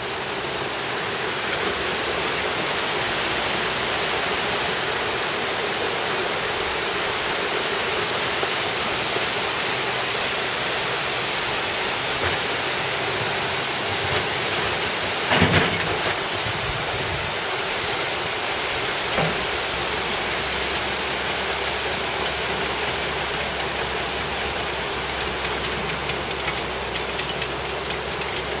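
Steady rush of a mountain torrent, an even hiss of running water. A brief, sharp, louder sound stands out about halfway through.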